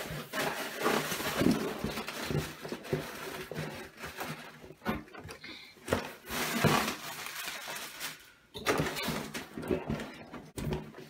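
Cardboard rubbing and scraping, with occasional knocks, as a printed retail box is slid out of a cardboard shipping box and handled.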